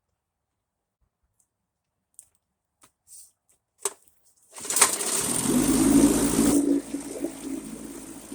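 A few faint clicks, then about four and a half seconds in the 1964 Johnson 3 hp two-stroke outboard motor starts. It runs loudly for about two seconds, then settles into a steadier, quieter run.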